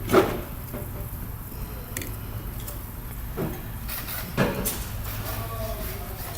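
A few sharp knocks and clicks of tools working on a cylinder head while a valve is being reinstalled, the loudest just after the start, over a steady low hum.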